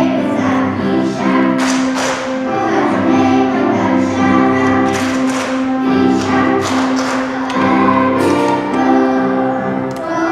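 Children's choir singing a song together over musical accompaniment.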